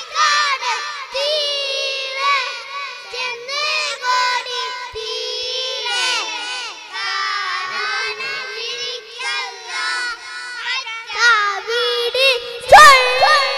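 A group of young children singing together into stage microphones, with a loud shout near the end.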